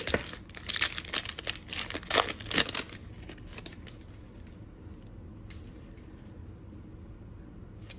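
Plastic wrapper of a trading-card pack being torn open and crinkled: a quick run of rips and crinkles for about three seconds, then only faint rustles as the cards are handled.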